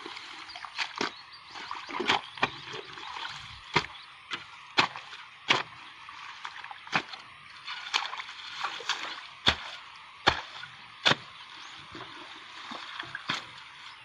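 Hands digging and scooping wet paddy mud and water out of a hole: irregular sharp wet slaps and splashes, over a steady faint hiss.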